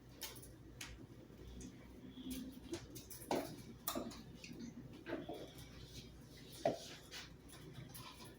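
Irregular light taps and clicks of cupcakes and kitchen items being handled on a counter, over a faint steady hum.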